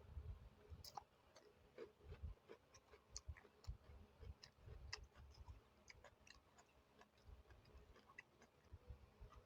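Faint close-up chewing: soft wet mouth sounds with many small irregular clicks, from a person eating.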